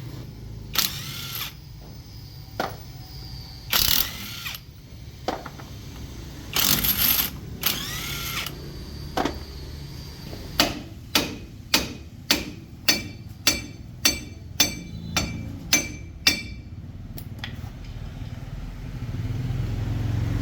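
A hammer striking metal: a few scattered clanks and scrapes, then a steady run of about a dozen ringing blows, roughly two a second, over a low rumble.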